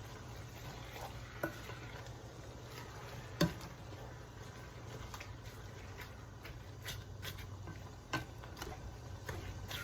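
Quiet kitchen sounds: a pot bubbling on the stove under a low steady hum, with a few sharp clinks of a utensil against the pot. The loudest clink comes about three and a half seconds in.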